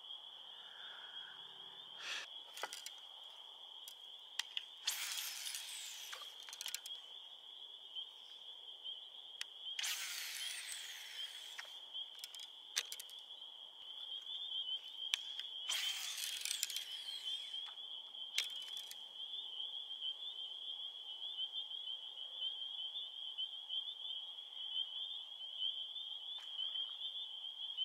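A steady, high-pitched chorus of night insects, which turns more rapidly pulsing about halfway through. A few short rushing swishes and sharp clicks break in over it.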